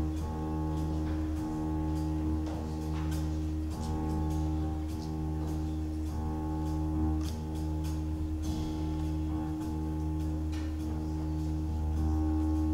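Live instrumental music from a small ensemble: a low chord held steadily, without singing, swelling slightly near the end.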